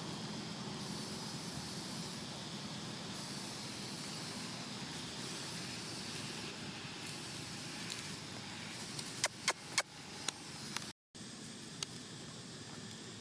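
Steady outdoor background hiss, with a quick run of five or six sharp clicks or taps about nine to ten seconds in and one more a little later. The sound drops out completely for a moment just before the last click.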